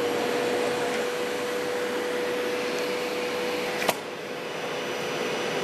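Vacuum cleaner with its filters removed running steadily, a whine over the rush of air drawn through the attached plastic-pipe bazooka. About four seconds in a single sharp click, after which the whine drops away and the rush continues.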